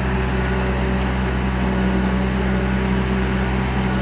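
Marine travel lift's engine running with a steady low hum as the lift rolls on its tires carrying a sailboat of about 30,000 pounds.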